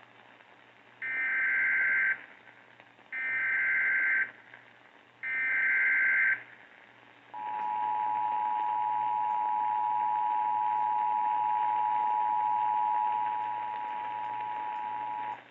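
Emergency Alert System activation for a tornado warning, received over AM radio. Three one-second bursts of SAME header data sound as a buzzy digital warble, each followed by a short gap. Then comes the two-tone EAS attention signal, a steady dissonant pair of notes held for about eight seconds, which drops slightly in level near the end.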